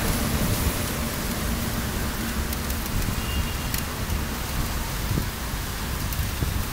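Wind buffeting the microphone in an uneven low rumble over a steady wet hiss, from riding a bicycle along a rain-soaked pavement after a storm.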